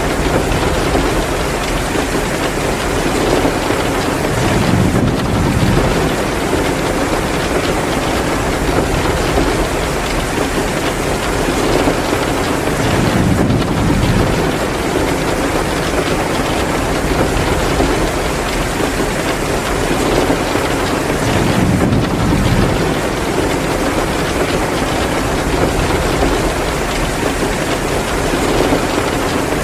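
Heavy rain falling steadily, with a low rumble swelling up about every eight seconds.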